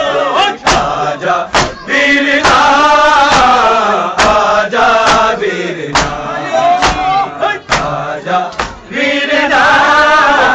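A crowd of men chanting a noha, a Shia mourning lament, with sharp slaps of hands striking bare chests (matam) at an uneven beat of about one or two a second.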